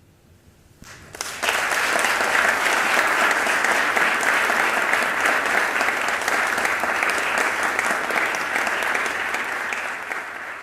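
Recital audience applauding after the flute's last note has died away: a brief hush, then many people clapping, starting about a second in and holding steady, tailing off at the end.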